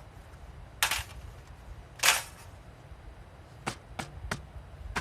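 Two sharp cracks a little over a second apart, then three light clicks in quick succession near the end, over a faint low rumble.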